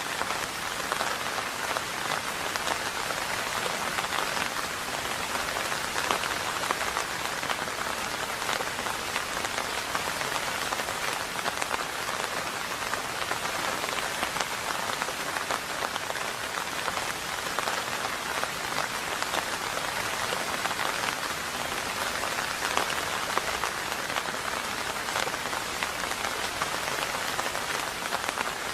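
Steady heavy rain, a dense patter of individual drops over a constant hiss. No thunder is heard.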